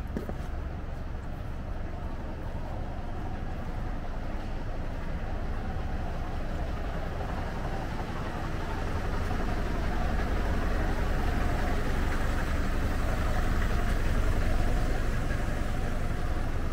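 Steady city street traffic noise: cars and other vehicles running past, growing gradually louder throughout.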